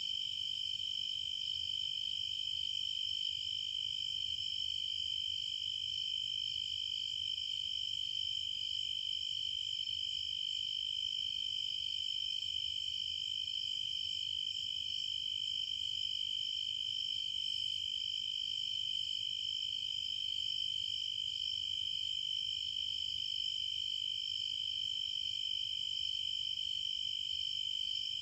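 A steady, unbroken chorus of trilling insects, high-pitched and even.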